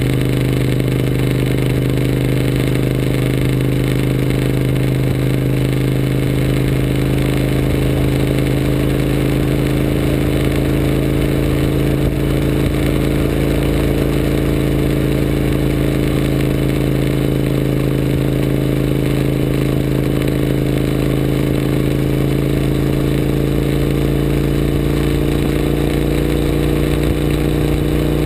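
Suzuki SV1000S's 996 cc V-twin engine running steadily at cruising speed, its note rising slightly near the end.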